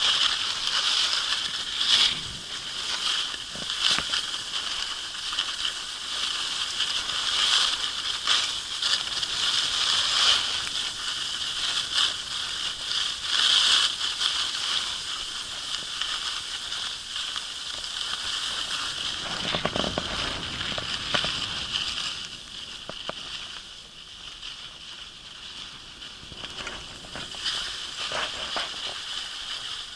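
Skis hissing and scraping over snow while being pulled along by a dog, with short rough scrapes throughout. A brief low rumble comes about two-thirds of the way through, and the hiss is quieter for a while after it.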